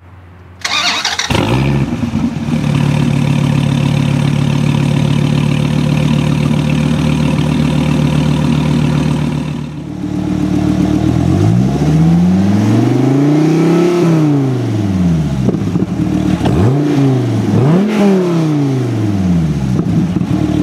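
2014 SRT Viper GTS's 8.4-litre V10 firing up about half a second in and settling into a steady idle. After a short break it is revved three times: one long slow climb and fall, then two quicker blips.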